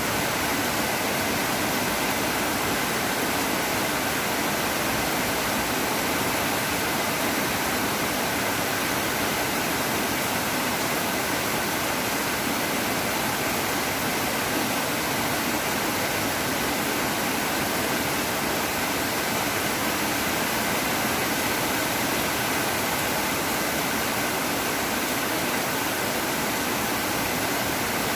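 Heavy rain falling, a steady even hiss that keeps on without a break.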